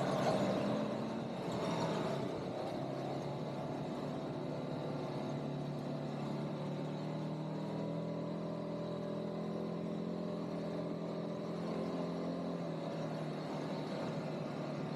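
ATV engine running steadily while riding, a little louder at the very start and again briefly about two seconds in.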